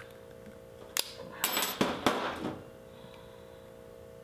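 A sharp metallic click, then about a second of clinking and clattering: pliers pulling the cut aluminum diaphragm retaining ring off a motorcycle carburetor slide and being set down on a metal workbench.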